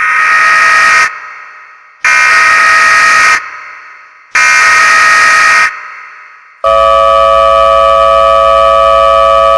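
Mock Emergency Alert System alert: three loud, buzzy header bursts of about a second each, each trailing off in a fading echo. About seven seconds in, a steady two-tone attention signal begins and holds.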